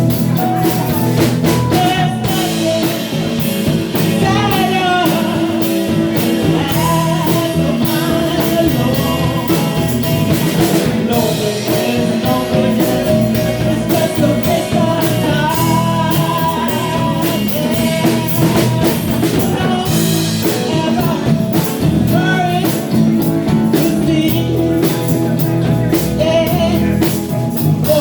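A song with a singing voice over a backing band of drums and guitar.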